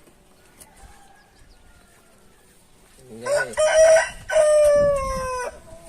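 A rooster crowing once, about three seconds in: a few short rising notes, then a long held note that slowly falls in pitch.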